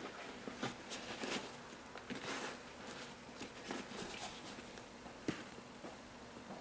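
Hands handling an Air Jordan 12 sneaker close to the microphone: soft, irregular rustles and scrapes of fingers on the shoe's upper, with a few small taps, the sharpest about five seconds in.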